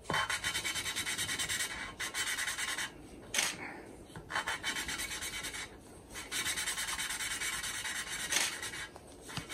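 A valve being lapped into the aluminium cylinder head of a Honda F20C engine with a suction-cup lapping stick: the stick is spun quickly back and forth between the palms, grinding the valve face against its seat with lapping paste in a fast, dry rubbing. The rubbing comes in runs, broken by several short pauses.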